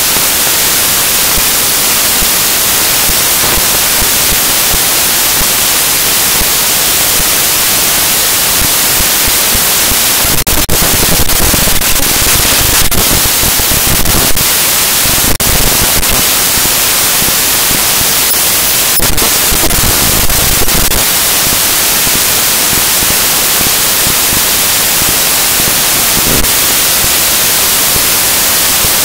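Loud, steady hiss of static with scattered sharp clicks and crackles, and a low rumble rising twice in the middle. The lecture recording's sound has dropped out, leaving only noise.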